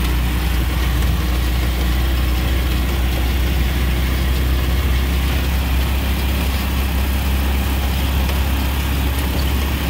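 Steady low drone of a vehicle engine with road noise, heard from a passenger seat while riding.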